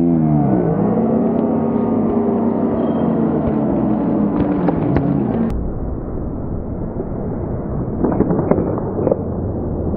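Ice hockey rink sounds: a long pitched tone, swooping at the start and then held steady for about five seconds before it stops, then a few sharp knocks of sticks and puck about eight to nine seconds in.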